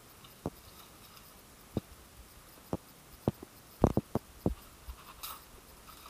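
Hand-handling noise: a string of separate light knocks and clicks as household objects are picked up and set down, with a quick cluster of louder knocks about four seconds in and a brief rustle shortly after five seconds.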